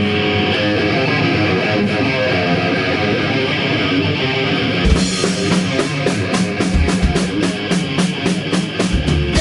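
Live rock band playing heavily distorted electric guitars; the drum kit comes in about five seconds in with steady cymbal hits and kick thumps.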